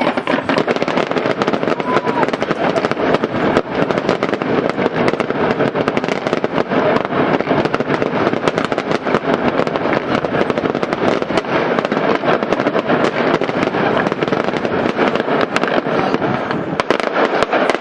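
A long barrage of firecrackers going off in a dense, unbroken crackle of rapid small bangs, too close together to count.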